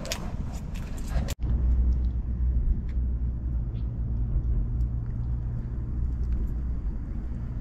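Low, steady rumble of passing road traffic, with light clicks during the first second before a cut.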